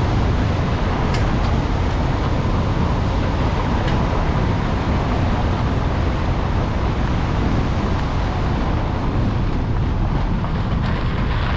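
Car driving on a dirt road: steady tyre and wind noise, with a few faint clicks about a second in and again around four seconds.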